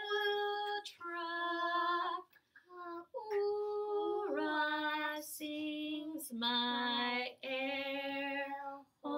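A woman singing a children's song unaccompanied at a slow, largo tempo, holding each note for about a second with short breaks between phrases.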